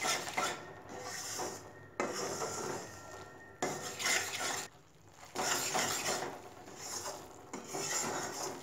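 A spatula scraping and stirring thick wheat flour and ghee around a metal kadhai, in repeated rasping strokes with short pauses between them. This is the slow roasting of the flour in ghee, the first stage of making sukhdi.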